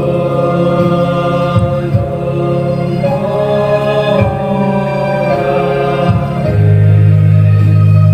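Church hymn: voices singing a slow melody over sustained organ chords, the organ's low notes growing louder near the end.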